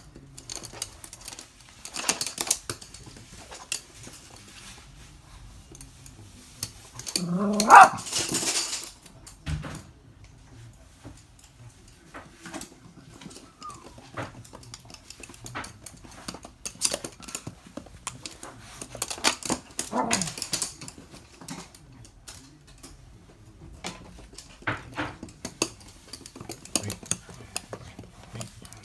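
Toy poodles playing: scampering and scrabbling on a hard floor, with many short clicks, and one sharp bark about eight seconds in.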